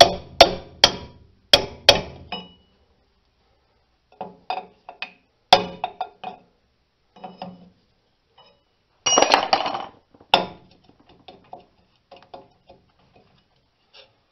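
Sharp metal clinks and knocks from tools and parts at a drum-brake backing plate as the wheel cylinder is worked free. There is a quick run of clinks at first, then scattered single knocks, and a burst of rattling clatter about nine seconds in.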